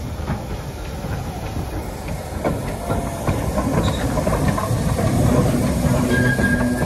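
Steam locomotive 45305, an LMS Black Five 4-6-0, with its train: steam hissing and scattered clanks and knocks from the wheels and stock. It gets louder in the second half, and a steady tone comes in near the end.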